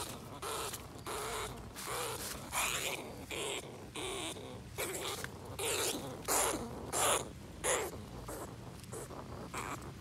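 Large rat caught in a chicken-wire cage trap, giving a run of short, harsh squeaks about two a second, loudest about six to eight seconds in.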